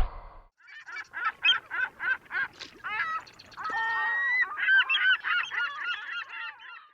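A bird honking: a run of short calls about two a second, one longer held call a little past the middle, then a quicker run, cut off abruptly at the end.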